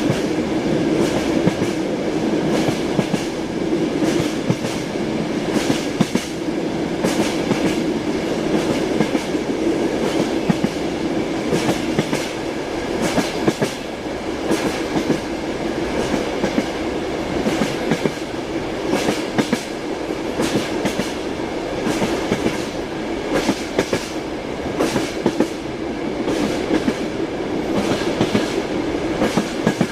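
Train wheels knocking over the rail joints in a repeated clickety-clack, clusters of sharp knocks every second or two over the steady rumble of a moving railway carriage.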